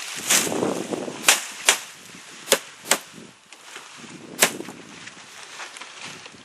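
Hammer nailing palm fronds onto the wooden arms of a thatched roof: five sharp blows, two pairs and then a single one. Before the first blow comes a rustle of palm leaves.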